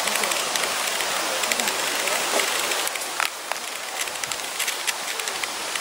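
Insect chorus: a dense, high-pitched buzzing made of fast, even pulses, easing briefly about three seconds in.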